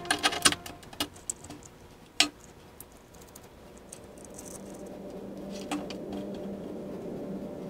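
Light metallic clicks and clinks from the parts of a laser module and its aluminium rail carriage being handled, several in the first couple of seconds. Faint background music comes in about halfway and carries on.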